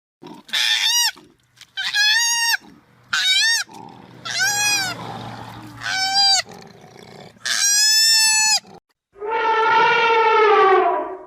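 An animal calling over and over: five short, high calls that rise and fall in pitch, about one every second and a half, then a longer, lower call that sinks in pitch near the end.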